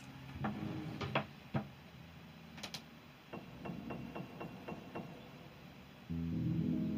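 A few light knocks and clicks of things being handled in an open dresser drawer, then a run of faint ticks. Background music with mallet-like tones comes in about six seconds in.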